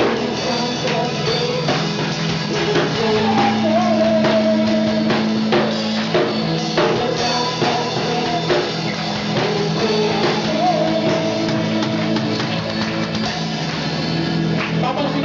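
A band playing a song with a singer, drum kit and guitar, the singing carried over sustained low notes and a steady drum beat.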